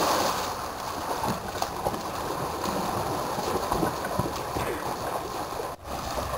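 Pool water splashing and churning as a swimmer thrashes his arms, loudest at the start, with a brief dropout near the end.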